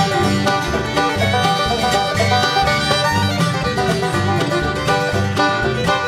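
Bluegrass band playing an instrumental passage: banjo, fiddle, acoustic guitar, mandolin and upright bass together, the bass notes falling on a steady beat about twice a second.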